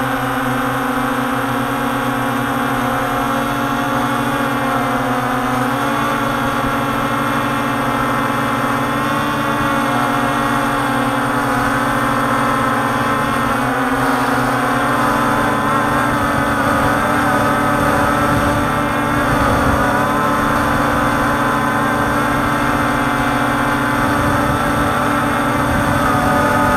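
Steady buzzing hum of a quadcopter drone's motors and propellers in hover and slow flight, holding an even pitch.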